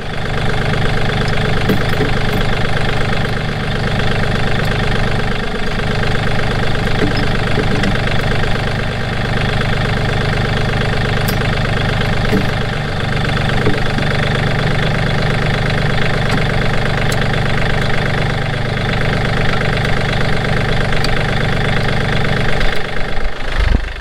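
John Deere 4200 compact tractor's three-cylinder diesel engine idling steadily.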